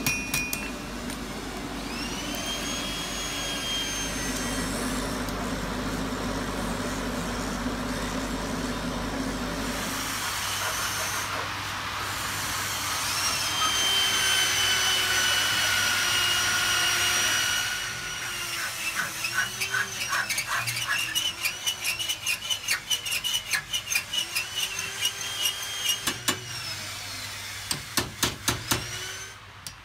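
Blacksmith's workshop: a steady mechanical whooshing with a low hum through the first half, then in the second half quick light metal-on-metal taps, several a second, as iron scrollwork is worked in a vise, over thin high wavering tones.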